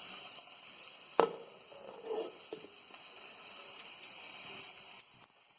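Boiled whole potatoes shallow-frying in oil in a pan, a steady low sizzle, with a sharp knock about a second in.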